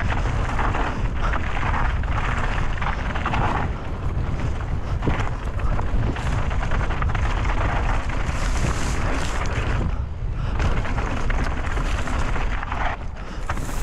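Wind buffeting the microphone of a camera on a mountain bike going fast downhill, a heavy steady rumble, with tyre noise on dry dirt and tall grass brushing against the bike coming and going over it.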